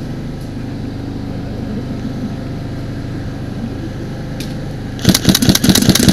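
Airsoft gun firing a quick burst of rapid shots about five seconds in, over a steady low hum.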